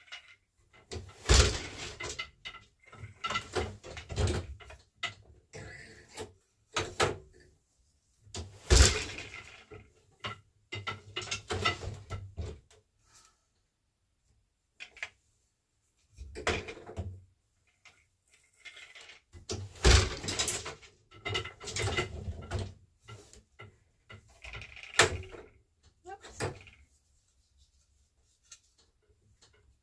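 Weaving on an 8-shaft wooden loom: boat shuttles sliding and clattering through the shed, the shafts shifting between picks, and the wooden beater knocking the weft into place. The sounds come in bursts with quiet pauses between picks, the loudest being three sharp knocks of the beater.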